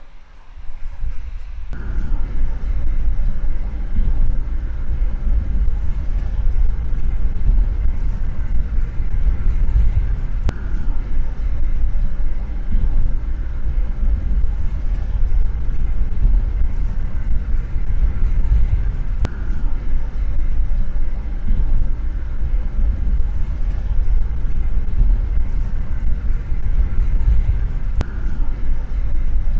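Low, heavy rumble of a car driving in strong wind, starting suddenly about two seconds in and running on steadily with an uneven, gusting level.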